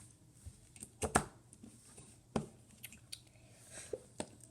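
A few light clicks and knocks of small toy pieces being handled. The loudest is a double knock about a second in, and a handful of single clicks follow.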